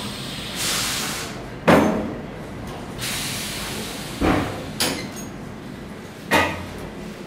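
Pneumatic air balancer hissing as it lowers heavy metal blocks, each hiss followed by a clunk as a block is set down on a workbench. It happens twice, with a lighter knock after the second and one more loud clunk near the end.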